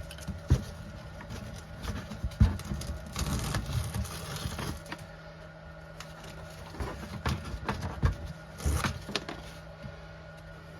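Scattered sharp knocks and clicks, like things being handled and set down, with a short rushing noise about three seconds in, over a steady low hum.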